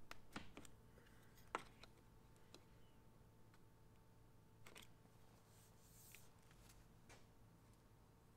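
Faint clicks and short scrapes of a hand scraper's blade worked along the metal edge of a door panel's recess, the sharpest click about a second and a half in, over a faint steady hum.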